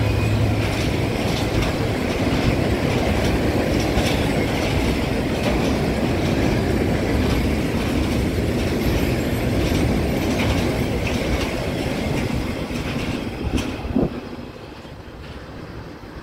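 Freight train of tank wagons rolling past: a steady rumble with a rapid clickety-clack of the wheelsets, and the low engine hum of the diesel locomotive ahead fading in the first second. About fourteen seconds in there is a sharp knock as the last wagon goes by, and the sound drops to a much quieter rushing.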